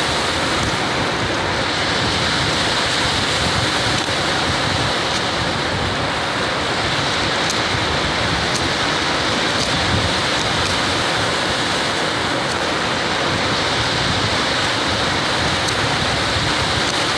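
Ocean surf and wind making a steady, even noise, with a few faint ticks high up.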